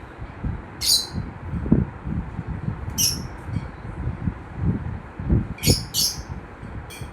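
Lovebirds giving short, sharp, high chirps, about five in all, spaced irregularly and with two in quick succession near the end, over an irregular low rumbling noise.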